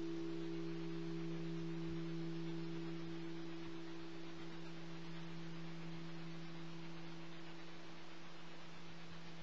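A large carillon bell's tone dying away slowly after being struck: a low steady hum with a second note an octave above, with no new stroke.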